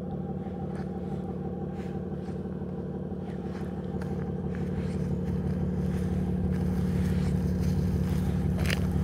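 BMW F80 M3's twin-turbo inline-six idling steadily, with a low even hum that slowly grows louder.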